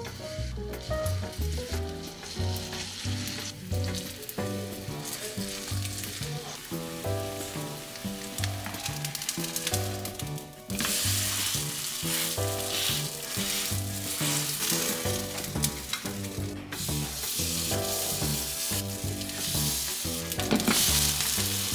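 Kimchi pancake batter frying in an oiled pan, sizzling, much louder from about halfway through, over background music with a steady beat.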